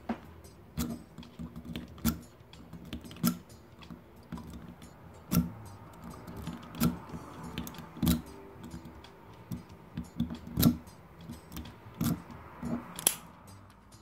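Snake rake being worked in and out of the 4-pin cylinder of a Squire Vulcan padlock: a run of small metallic clicks and scratches from the pick and pins, with a sharper click every second or two.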